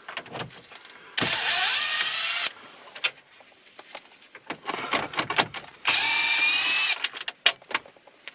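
Cordless drill-driver spinning in two bursts of about a second each, the first rising in pitch as it spins up, backing out the 7 mm screws that hold the factory radio in the dash. Small clicks and rattles of handled parts come between the bursts.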